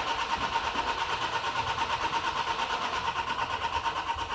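Starter motor cranking the Nissan X-Trail's 2-litre common-rail diesel engine with a rapid, even pulsing, without the engine firing. No injector current shows during the crank, and the mechanic suspects low fuel pressure behind the hard start.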